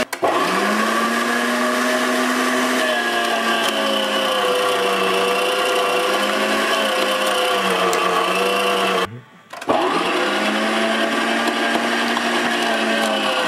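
SamBaere SB-500 electric meat grinder's motor running steadily as raw chicken with soft bones is pushed through the auger, its pitch sagging under load. It cuts out very briefly just after the start and for about half a second around nine seconds in, each time spinning back up to speed.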